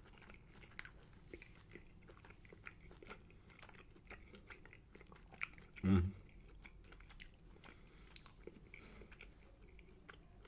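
Close-miked mouth-closed chewing of soft spicy rice, egg and melted smoked Gouda: many small wet mouth clicks and smacks, with one brief hum about six seconds in.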